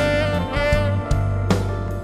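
Live funk band playing an instrumental passage: bass, drums and guitar under a held horn melody, with drum hits at the start and again about a second and a half in.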